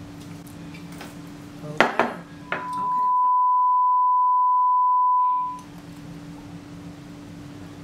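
A steady test-tone beep, as played over TV colour bars, holding one high pitch for about three seconds from about two and a half seconds in. Just before it come a few sharp clinks of glass as a shot is poured.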